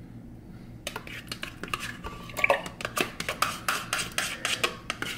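A metal spoon scraping and clinking in a rapid, uneven run of short clicks as Greek yogurt is scooped from its plastic cup into a glass blender jar. It starts about a second in.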